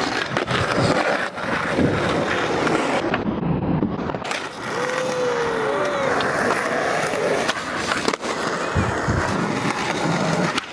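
Skateboard wheels rolling on rough concrete, broken by many sharp clacks of the board popping and landing during tricks.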